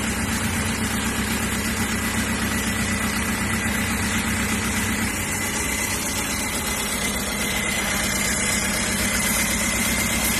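Isuzu Panther turbo four-cylinder diesel idling steadily on a test run after an engine rebuild, with a thin high whine running alongside.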